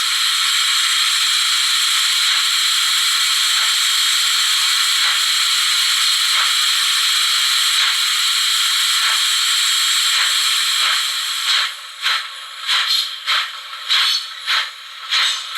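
Sound decoder of an ESU HO-scale SNCB Series 98 model steam locomotive playing a steady steam hiss through its small speaker. About eleven seconds in, the hiss breaks into regular puffs, about two a second.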